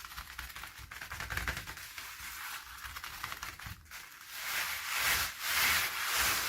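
Packaging being handled and opened, crinkling and rustling with quick fine crackles. It grows louder and hissier about four seconds in.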